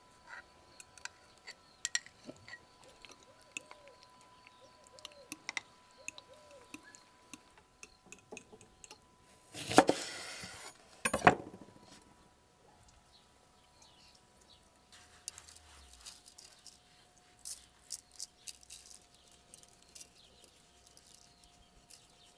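Food preparation sounds: a metal spoon clinking and scraping against a glass jar and glass bowl, then a knife cutting a lemon on a wooden board, a loud cut about ten seconds in followed by a sharp knock, then soft scattered taps.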